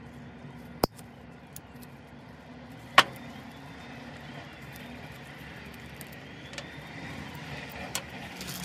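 Pliers and a valve-cover hold-down bolt being handled as the old rubber seal is worked off the bolt: two sharp metal clicks, about a second in and again two seconds later, with a few faint ticks, over a low steady background hum.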